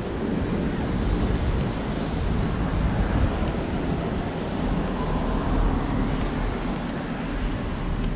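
City street traffic noise: a steady rumble of passing road vehicles.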